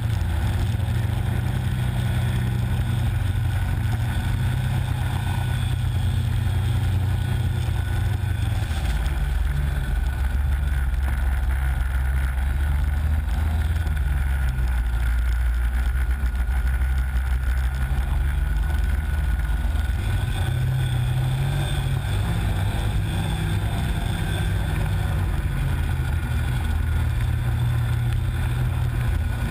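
Snowmobile engine running under way through deep snow. Its pitch drops as it slows about a third of the way in, then rises again as it speeds up about two-thirds of the way through.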